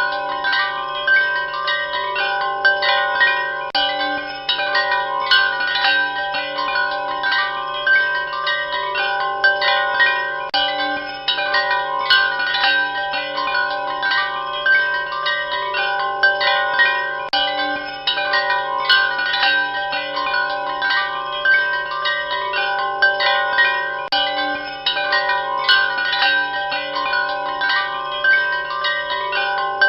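Chimes ringing continuously: many overlapping strikes on a handful of fixed pitches, each tone ringing on under the next, at an even level.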